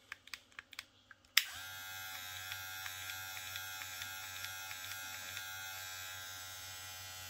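Cordless hair clipper, its blades freshly oiled, switched on with a click about a second and a half in after a few small handling clicks, then running with a steady electric buzz.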